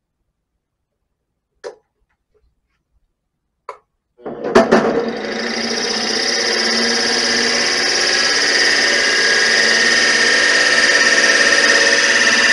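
Vevor 7x14 mini lathe starting up about four seconds in with a short clatter, then running steadily with a loud whine and hiss. Two faint clicks come before it starts.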